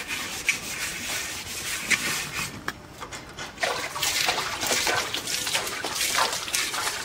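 An iron tawa (griddle) being scrubbed with a scouring pad, then rinsed by hand-splashing water from a tub over it, the water splattering on the pan and the concrete ground from about halfway through.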